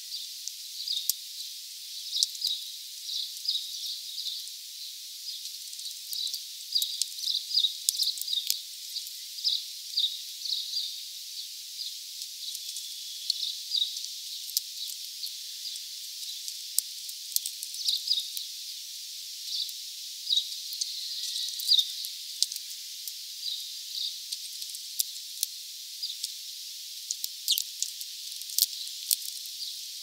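European greenfinch cracking sunflower seeds, giving scattered sharp clicks, over many short, high chirps of small birds.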